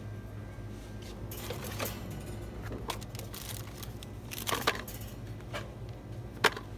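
Light clicks and taps of small items being handled, a few scattered through, a small cluster about two-thirds of the way in and one sharp click near the end, over a steady low hum.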